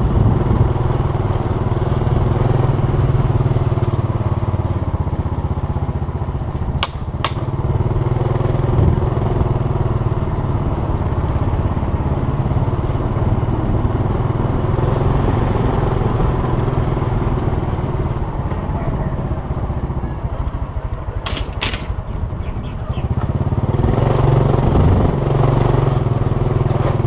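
Small motorcycle engine running steadily as it is ridden, easing off briefly about twenty seconds in and picking up again a few seconds later. Two pairs of sharp clicks, about seven seconds in and about twenty-one seconds in.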